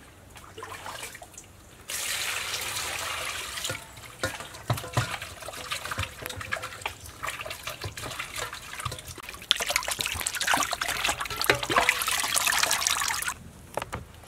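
Pork bones being washed by hand in water in a stainless steel basin: a short steady rush of water about two seconds in, then sloshing and splashing with small knocks of bone against the metal bowl, louder in the last few seconds.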